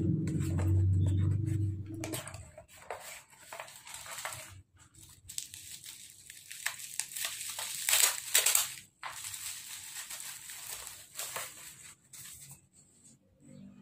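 Plastic mailer bag and bubble wrap rustling and crinkling as they are handled and pulled apart, in irregular bursts, loudest about eight seconds in. A low pitched sound runs through the first two seconds.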